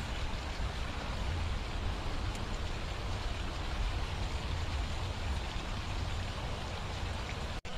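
Steady rushing outdoor noise with a low, wavering rumble beneath it, broken by a brief dropout near the end.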